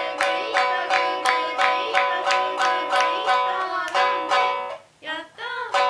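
Shamisen played in a quick, steady beat of about three strokes a second, with hand claps and a sung drinking-game chant urging a guest to drink it all in big gulps. The playing breaks off about five seconds in and starts again just before the end.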